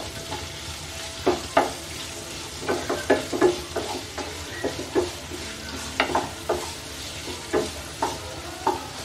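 A spatula stirring and scraping chicken and sliced vegetables around a non-stick kadai, in irregular strokes about one or two a second, over a steady sizzle of frying.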